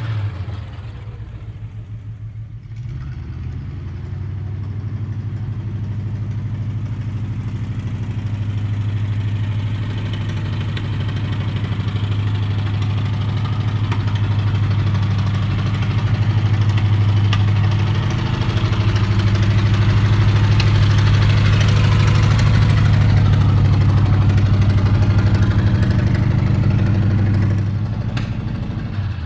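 Mercury flathead V8 in a Ford 8N tractor, running through straight dual exhaust pipes as the tractor drives around. The steady, low engine note grows louder as the tractor comes near and fades in the last second or two as it moves away.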